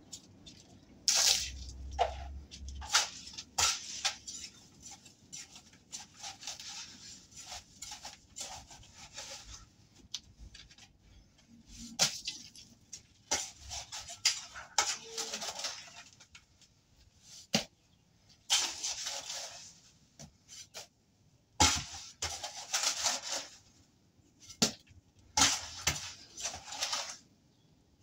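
Hand trowel scraping and knocking against a bucket: short irregular scrapes with sharp knocks between them.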